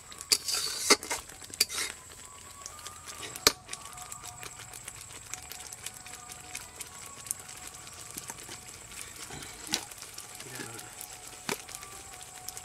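A metal ladle scraping and stirring thick gravy in a metal kadai for the first two seconds. After that the gravy simmers with a steady low sizzle, broken by a few sharp clicks.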